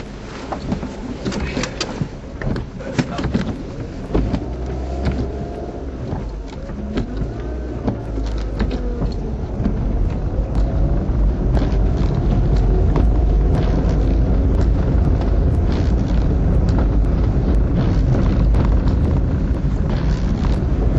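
Car driving, heard from inside the cabin: a deep rumble that comes in about four seconds in, grows louder around ten seconds and then holds steady, with scattered clicks and knocks.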